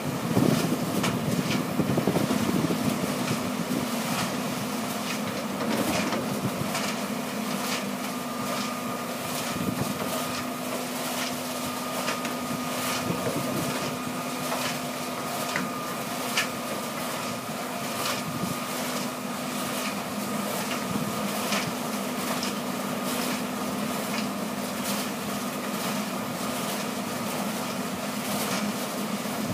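A trommel screen plant and hydraulic excavators running together: a steady diesel engine drone with a constant low hum, and scattered clatter of rock and dirt cuttings tumbling and dropping. The clatter is loudest in the first few seconds.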